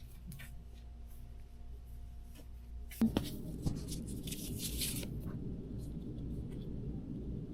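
Handling noises of a phone and its plastic screen protector: scattered light clicks and taps, then a sharp click about three seconds in. After it, rubbing and scraping of plastic follows over a steady low background rumble.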